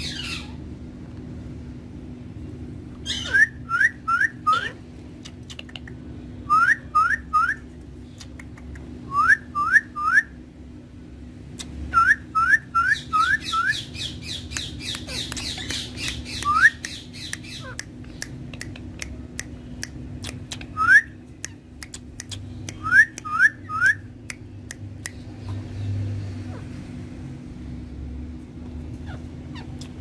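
Rose-ringed (Indian ringneck) parakeets calling: short, rising squawks in quick runs of two to four, repeated every few seconds, with a stretch of fainter high chatter in the middle.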